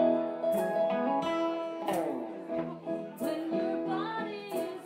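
A band playing live: guitars strummed and plucked over keyboard, at a full, steady level.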